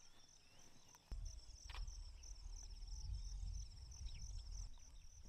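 Insects chirping steadily in a high, rhythmic pulse, with a few short bird calls. About a second in a low rumble starts and becomes the loudest sound, fading near the end.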